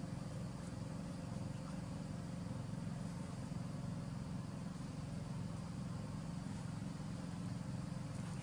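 A steady low mechanical hum, like an engine running.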